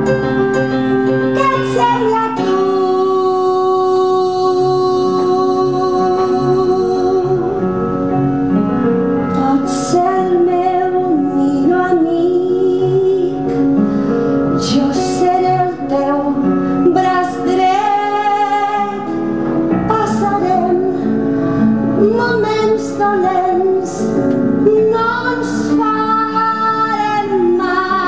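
A woman singing a song with vibrato, accompanied by piano.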